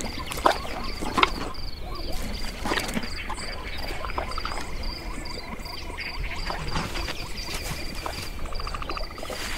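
Wildlife ambience of insects chirping in a steady rhythm, about two or three chirps a second, over a continuous high trill, with scattered short croaks and clicks.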